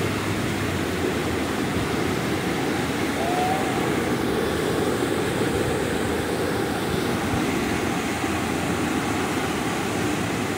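River water pouring over a low dam spillway and churning into whitewater, a steady, unbroken rushing.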